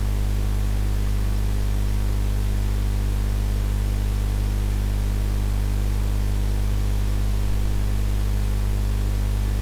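Steady electrical mains hum, with a buzz of overtones over a layer of hiss. It is loud and unchanging, the same hum that lies under the instructor's voice on either side.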